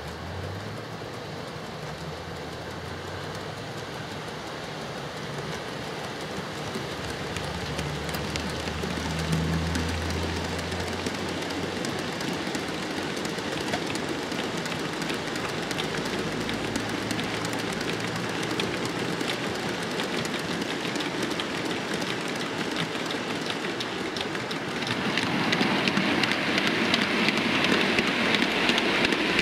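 OO-gauge model coal train running on track: a long rake of hopper wagons clicking and rattling over the rail joints, with a low hum from the locomotive. It gets louder near the end as the wagons pass close by.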